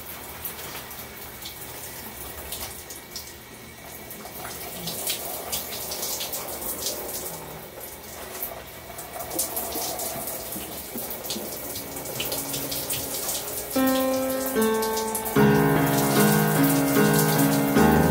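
Shower spray running and splashing onto hair, a steady hiss with small spatters. Background music fades in near the end and grows louder over the water.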